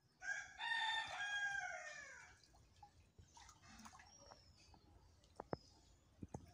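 A rooster crowing once: one call of about two seconds with a clear pitch that drops at the end.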